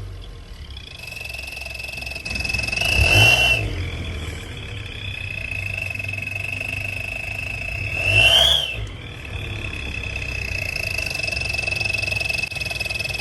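Turbo whistles in a 2020 Nissan Altima's exhaust giving a steady high whistle as the car drives, over low engine and road noise. Twice, about three seconds in and again near eight seconds, the car gets louder and the whistle rises briefly in pitch.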